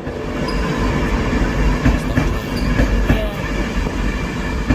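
InterCity passenger train carriages rolling past with a low rumble, the wheels clacking over rail joints several times, with brief thin wheel squeals.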